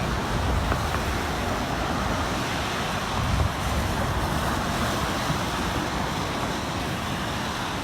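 Steady noise of road traffic passing on a bridge, with an uneven low rumble of wind on the microphone.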